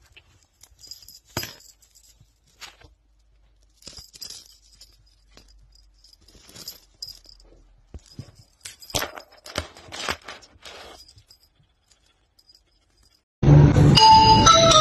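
A kitten grooming itself, with soft, scattered licking and rustling sounds of its tongue working its fur. Near the end, loud music with bell-like notes starts suddenly.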